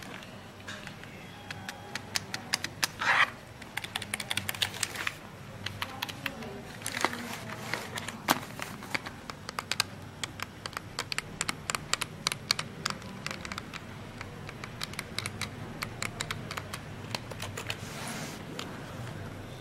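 Keys of a Circle C48 keyboard being pressed one after another, a run of irregular key clicks in quick bursts with short pauses between.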